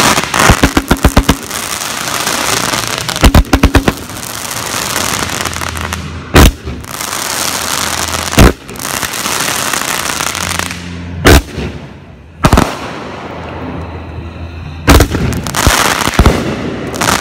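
Aerial fireworks: two quick rattling volleys of reports in the first few seconds, then continuous crackling with about six loud single bangs from bursting shells spread through the rest.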